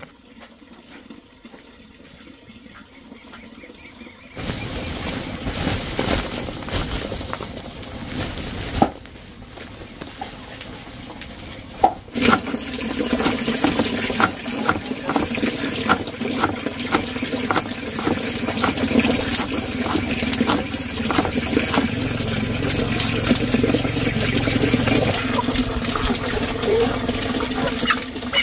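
Cleaver chopping green herbs on a plastic cutting board, sharp strokes about two a second, over a steady rush of running water.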